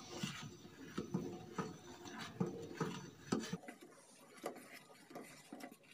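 Metal spoon stirring a liquid agar-agar mixture in a metal saucepan, with light irregular clinks and scrapes against the pot every fraction of a second. The taps thin out about three and a half seconds in.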